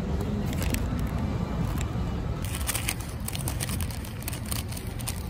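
Plastic fork cutting through a canelé's crisp crust on its paper wrapper: a run of sharp crackles and clicks starting about halfway through, over a steady low rumble of street traffic.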